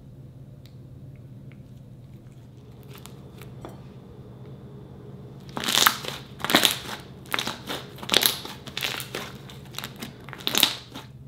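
Hands squeezing and kneading a thick slime, giving a run of loud, squishy bursts from about halfway through. Before that, only a few faint pops as a coffee-coloured slime slides slowly into a glass mug.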